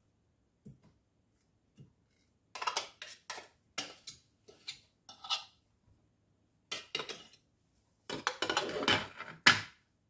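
A table knife and pieces of butter knocking and scraping against the stainless-steel Thermomix mixing bowl: a run of short clinks over several seconds, with a denser, louder cluster near the end.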